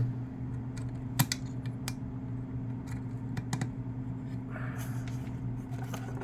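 Scattered small clicks and taps of multimeter test leads and probes being fitted to the logic board's terminals, over a steady low electrical hum. A louder hum cuts off right at the start.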